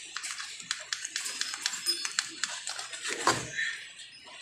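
A small stiff brush scrubbing the finned cylinder of a motorcycle engine: a quick, irregular run of scratchy clicks and scrapes of bristles on metal, with one short louder sound about three seconds in.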